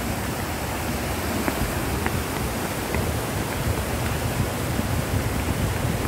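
Steady rushing and splashing of a big plaza fountain's water jets falling into its basin, with a low rumble underneath.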